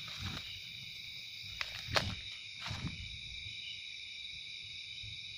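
Steady high chorus of night insects, with a few short knocks about two to three seconds in.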